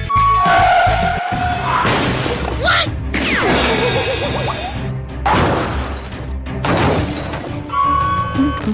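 Cartoon sound effects over background music: several sudden crash-and-shatter noises. A vehicle's reversing beeps sound at the very start and again near the end.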